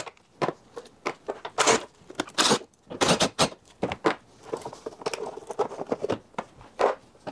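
Plastic intake duct and air box being worked loose and lifted out of the engine bay, with a run of short clicks, knocks and rattles. A cordless drill-driver runs briefly about two-thirds of the way through.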